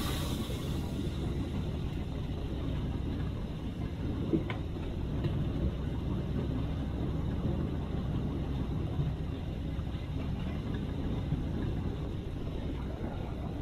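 LXD2 narrow-gauge diesel locomotive on the move: a steady low rumble of its engine and wheels on the track, with one sharp click about four seconds in.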